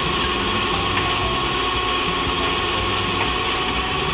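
Heavy tow truck's diesel engine running steadily while its crane winch hauls an overturned dump truck upright, with a thin steady whine over the low rumble.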